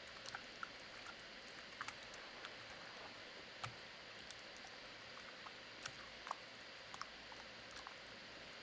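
Hands mixing raw chicken pieces into a butter, sour cream and spice marinade in a glass bowl: faint wet squishing with scattered small clicks over a steady hiss.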